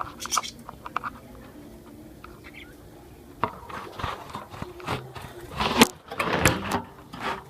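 Lovebirds making a few short, high chirps near the start, then scratchy rustling with sharp knocks from about halfway, loudest near the end.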